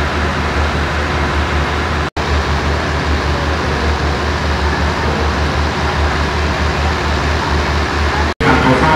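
Steady low engine rumble of a train idling at the station platform, running evenly throughout. The sound drops out for an instant twice.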